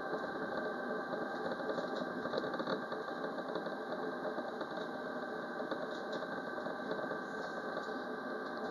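Alstom Citadis Dualis tram-train running along the line, heard from inside the driver's cab: a steady mechanical hum of traction motors and wheels on rails, with light scattered ticks.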